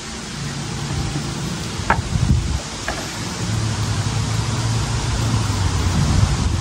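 A low motor hum that shifts to a lower, steadier pitch about three seconds in, over a constant hiss of wind and water, with a couple of faint clicks.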